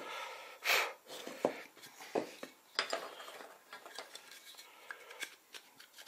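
Wooden frame pieces being handled: a short scraping rub under a second in, then a string of light wooden knocks and clicks as the boards are picked up and set against each other.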